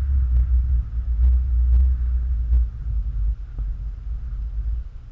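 Wind buffeting the microphone: a loud, uneven low rumble that eases a little past the halfway point, with a few faint clicks.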